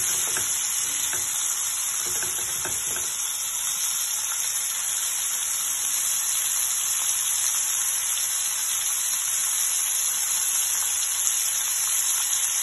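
Beef steaks searing in butter in a nonstick frying pan: a steady hiss of sizzling fat, with a few short spatula scrapes against the pan in the first three seconds.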